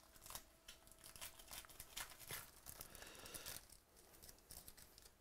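Faint crinkling and rustling of trading-card pack wrappers and cards being handled, a scatter of small rustles and clicks.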